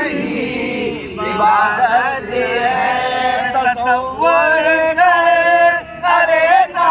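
A man singing an Urdu devotional song in long, drawn-out melodic phrases of held notes with no clear words, breaking briefly between phrases.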